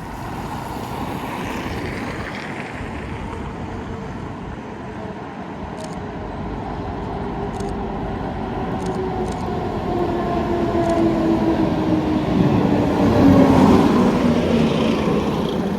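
Heritage tram running on the rails, a steady rumble with a whine that falls in pitch through the second half and grows louder, loudest a couple of seconds before the end.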